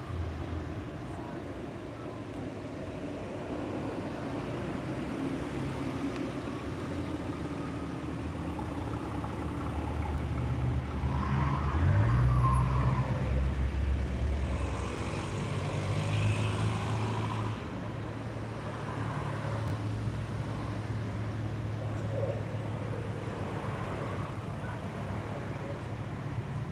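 Cars driving past one after another, their engine and tyre noise swelling and fading. The loudest pass comes about halfway through, with an engine note rising as it goes by.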